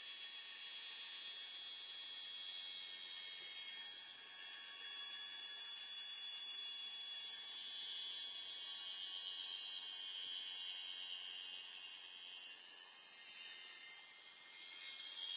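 Blender's small brushed motor, rewound for 12 volts, running with a steady high-pitched whine and hiss that grows louder about a second in and then holds.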